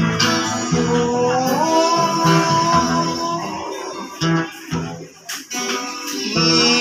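Street busker's acoustic guitar being strummed, playing a song.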